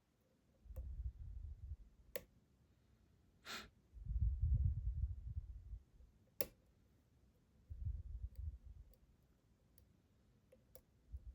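Sparse, sharp metallic clicks of a short flat lock pick working inside a lock's keyway. Between them come several low, muffled rumbles of handling lasting about a second each, and one short breath-like hiss about three and a half seconds in.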